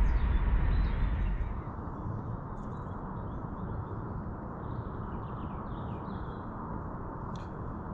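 A low rumble that cuts off suddenly about a second and a half in, then small birds chirping now and then over a steady background hiss.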